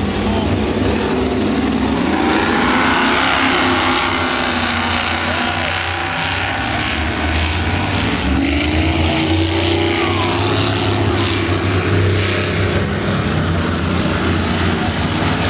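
Several offshore racing powerboats accelerating hard, their engines making a loud, deep drone that climbs in pitch about two seconds in and again around eight seconds in. Rushing water from the churned wakes runs beneath the engine noise.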